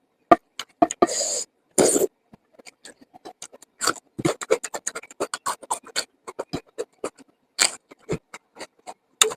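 Close-miked chewing and lip smacking while eating: a couple of longer wet bites in the first two seconds, then a quick, irregular run of sharp mouth clicks.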